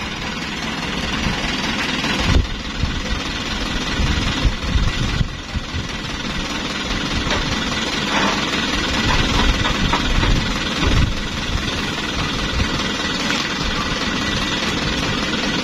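Diesel engine of a sand-loaded Toyota Dyna dump truck running with an uneven low rumble, with a couple of brief knocks about two and five seconds in.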